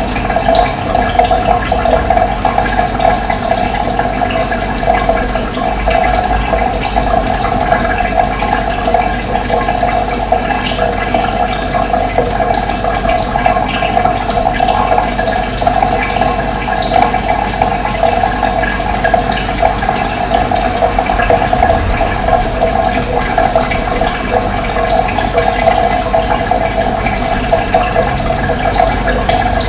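Running water: a steady, continuous rushing and gurgling flow.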